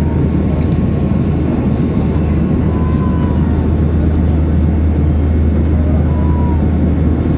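Steady low rumble of airliner cabin noise, the jet engines and rushing air heard from inside the passenger cabin.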